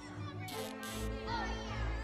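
March music on a cartoon soundtrack, with two short noisy hits about half a second in and brief gliding voice-like sounds around the middle.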